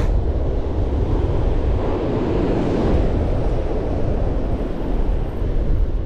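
Strong wind buffeting the microphone over breaking ocean surf, with a surge of surf about two to three seconds in.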